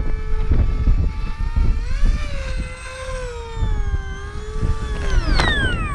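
Electric motor and propeller of an XK A1200 RC glider whining as it flies past, the pitch swelling and easing gently. From about five seconds in, the pitch drops steeply as the motor winds down.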